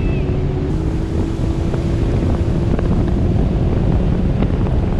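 Sea-Doo Fish Pro personal watercraft running at speed: a steady engine drone under rushing water spray, with heavy wind buffeting the microphone.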